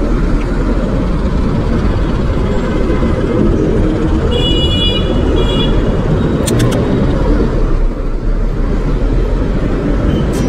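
Steady rumble of wind and road noise from riding a motorcycle through city traffic. A vehicle horn sounds twice briefly about four and a half seconds in.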